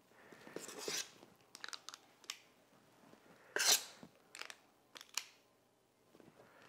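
Sticky bread dough being scooped out of a stainless steel mixing bowl: a handful of short scrapes and knocks, the loudest about halfway through.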